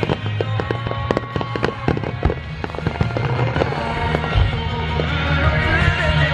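Fireworks finale starmine barrage: rapid crackling and popping shells with a few deep booms, over music with a steady pitched line.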